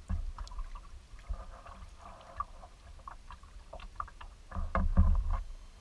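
Kayak paddling: water splashing and dripping off the paddle blade with each stroke, and low thumps, the loudest cluster about a second before the end.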